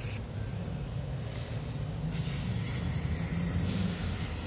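Aerosol can of WD-40 silicone lubricant hissing in short bursts as it is sprayed onto the polyurethane insert of an engine mount, over a steady low hum.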